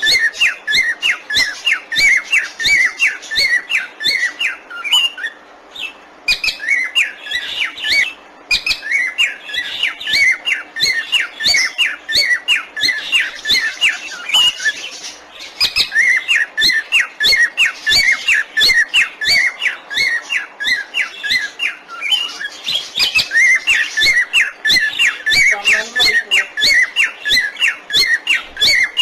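Parrots chattering: a rapid, nonstop run of short chirps and squawks, several each second, with a few brief pauses.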